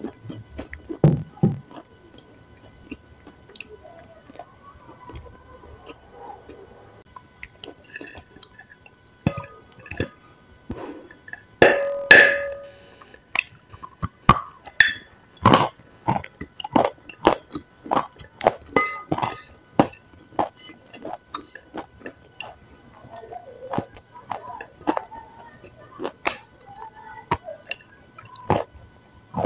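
Close-miked eating: a soft food bitten and chewed, with wet mouth clicks and smacks coming a few times a second. About twelve seconds in there is a louder, longer mouth sound with a brief hum in it.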